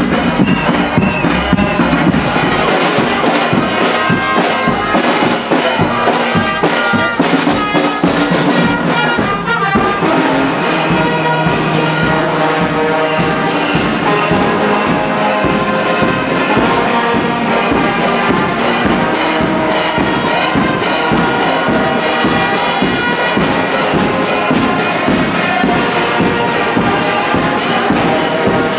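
Military brass band playing a tune with a steady beat, led by trombones, trumpets and a tuba.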